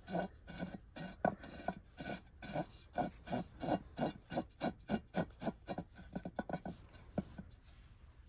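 Unglazed ceramic pot grating on a stone stand as it is turned by hand: a quick run of short scrapes, about three or four a second, that stops about seven seconds in.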